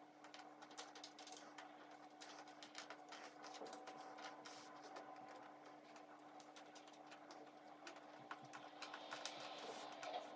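Cardboard jigsaw puzzle pieces clicking and rustling faintly as a hand picks through them and sweeps them into piles on a tabletop, a quick irregular run of small clicks.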